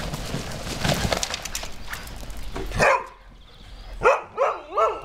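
Dogs playing: a stretch of noisy rustling, then a dog barks once about three seconds in and three times in quick succession near the end, each bark bending up and down in pitch.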